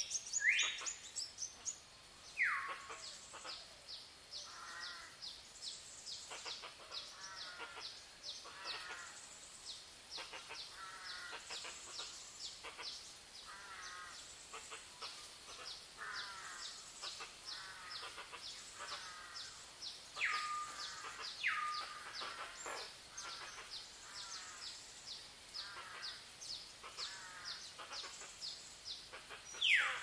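Several wild birds calling at once: continuous fast high chirping and warbled phrases, with a few loud whistles sliding downward in pitch near the start, twice about two-thirds of the way through, and again at the end.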